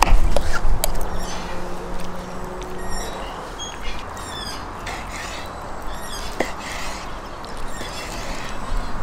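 Outdoor background of birds chirping in short high calls, with a few sharp knife taps on a wooden cutting board as cooked lamb is cut from the bone. A low steady hum runs through the first three seconds.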